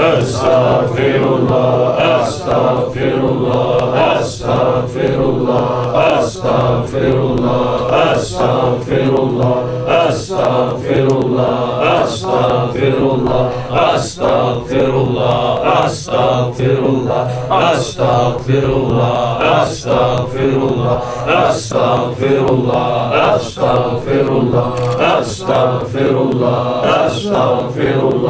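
Sufi dhikr chanted aloud: a short Arabic devotional phrase repeated over and over by voices in a steady rhythm, with a brief break between repetitions.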